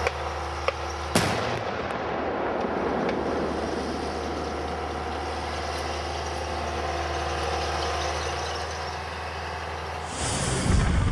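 BOZENA 5 flail demining machine working the ground: a steady engine rumble with the noise of the flail beating the soil. A sharp blast comes about a second in. Music comes in near the end.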